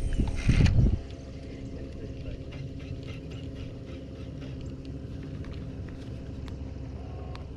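Wind buffets the microphone in low rumbling gusts for about a second. After that comes a quieter, steady low hum with faint thin tones and a few light ticks.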